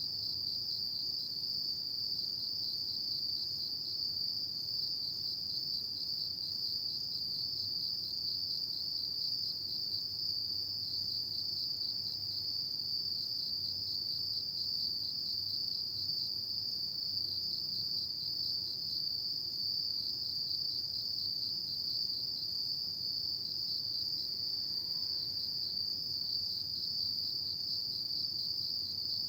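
Autumn night chorus of crickets: a steady, high-pitched trilling that pulses rapidly and never stops.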